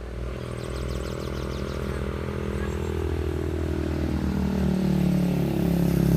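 Motorcycle engine approaching and growing steadily louder, its note dropping slightly as it comes by near the end.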